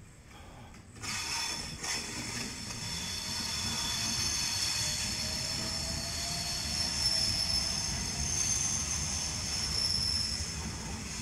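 Electric passenger train pulling into the station, with a low rumble and a high, steady metallic squeal that sets in about a second in and holds.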